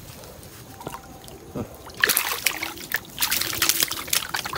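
A hooked lăng catfish (Hemibagrus) thrashing and splashing at the water's surface at the bank as it is pulled in on the line. The first half is quieter with water trickling; a run of loud, irregular splashes starts about halfway through.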